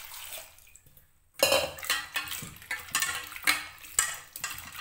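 Water pouring into a steel pot of cut potato sticks. The pour stops about a second in. From about a second and a half, a hand swishes and rubs the potatoes in the water, with repeated sloshing and clattering of the pieces against the pot.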